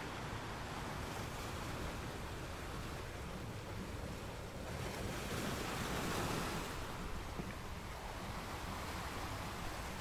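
Sea surf: waves washing steadily, with one wave surging up about halfway through and falling away again.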